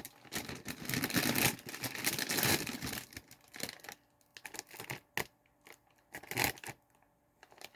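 A crinkly HERR's cheese curl snack bag being torn open: dense crackling rustle for about three seconds, then scattered short crinkles as the open bag is handled.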